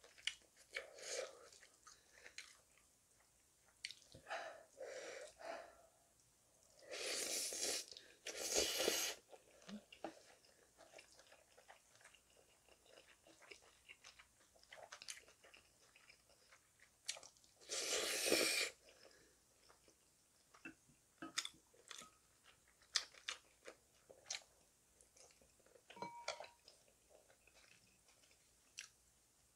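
Close-miked eating of spicy cold naengmyeon noodles: soft chewing and mouth clicks throughout, with three long, loud noodle slurps, two about seven and eight and a half seconds in and another about eighteen seconds in.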